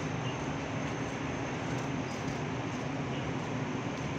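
Steady rain falling on wet paving and puddles, an even hiss with a low steady hum underneath.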